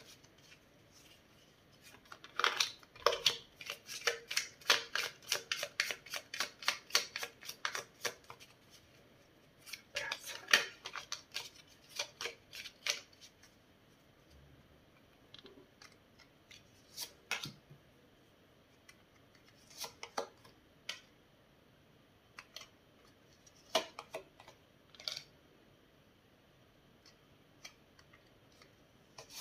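A tarot deck being shuffled by hand: two runs of rapid card flicks lasting a few seconds each, then scattered single snaps and taps as cards are drawn and laid on a wooden table.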